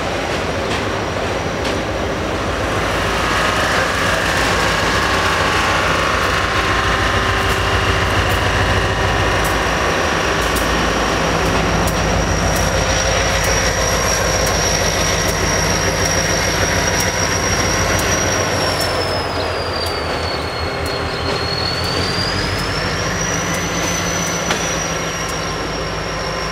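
Freight train rolling past on a rail yard track, wheels squealing as the cars go by, then the deep steady running of CSX diesel locomotives as they pass. A thin high squeal dips in pitch and rises again near the end.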